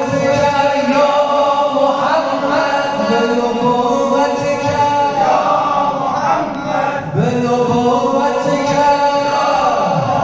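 Voices chanting a noha, a Shia mourning lament, in long sung phrases with short breaks between them.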